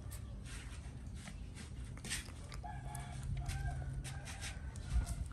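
A chicken calling: a drawn-out, pitched call broken into a few segments, starting about two and a half seconds in and lasting about two seconds, over scattered faint clicks.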